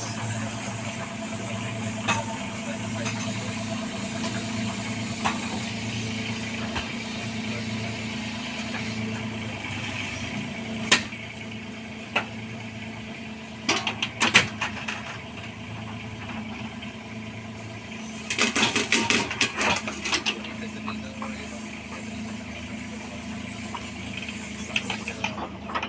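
Bobcat 322 mini excavator's diesel engine running steadily, with sharp metallic knocks now and then and a burst of rapid clattering about 18 seconds in.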